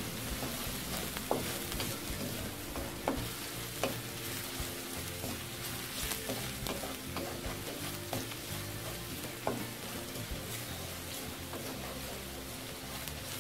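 Minced garlic and sliced red chillies sizzling in hot oil in a steel wok, stirred with a wooden spatula that knocks and scrapes against the pan now and then.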